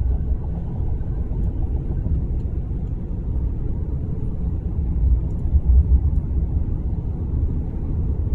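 Low, steady engine and road rumble heard inside the cab of a heavy-duty diesel pickup truck running at speed, swelling slightly about five seconds in.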